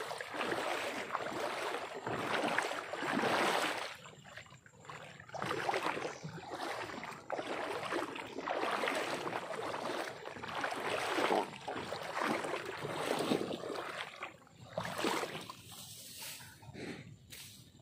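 Wading through shallow floodwater and tall grass: water sloshing and grass swishing with each stride, about one step a second, getting quieter near the end.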